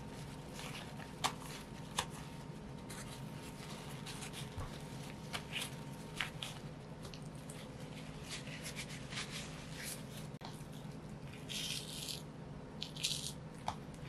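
A rack of raw pork ribs being handled on a bamboo cutting board: scattered taps and knocks on the wood, with a few short scraping, tearing sounds near the end as the meat is worked by hand. A steady low hum runs underneath.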